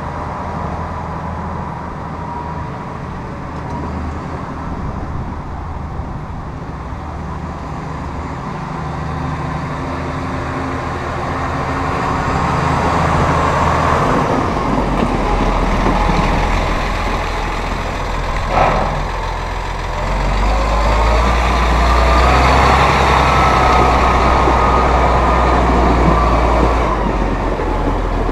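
2015 Massey Ferguson 7624's 7.4-litre AGCO Power diesel running as the tractor drives up, growing louder and deeper as it comes close. A brief sharp chirp comes about two-thirds through, and a whine rises in pitch near the end.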